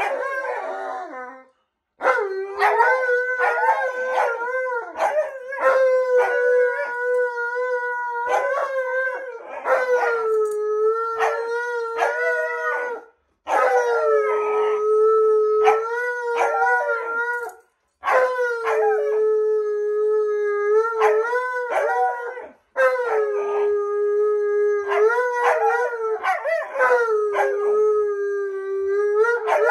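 An Alaskan malamute and a white husky howling together: a series of long held howls, each a few seconds long and separated by short breaths. The two voices overlap at times.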